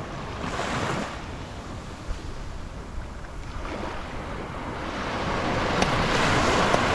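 Small waves washing up onto a sandy beach and sliding back, with a surge building louder near the end. A low wind rumble on the microphone runs underneath.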